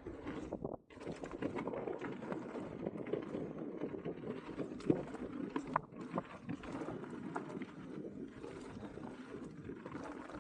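Mountain bike riding over a wet dirt trail: steady tyre and ride noise with frequent small clicks and knocks from the bike, briefly dropping out just under a second in.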